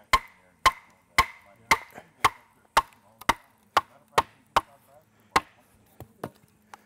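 A wooden club striking the back of a froe blade to drive it down through a board and split it: a steady series of sharp knocks, about two a second, each with a short metallic ring. The strikes get lighter and more spaced near the end.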